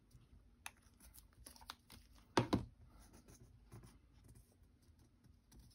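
Faint clicks and light rustling of cardstock being handled on a cutting mat, with one louder knock about two and a half seconds in.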